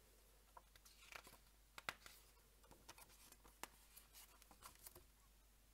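Near silence, with faint scattered clicks and soft rustles of a picture book's pages being handled and turned by hand.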